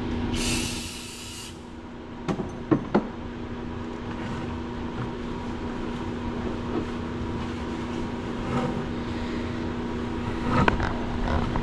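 Workshop sounds: a steady hum under a noisy background, a short burst of hissing about half a second in, a few sharp metal clinks a couple of seconds later, and knocks near the end.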